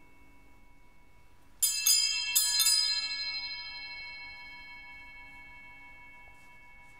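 Altar bells rung at the elevation of the chalice during the consecration: four strikes in two quick pairs about a second and a half in, then a long ringing decay.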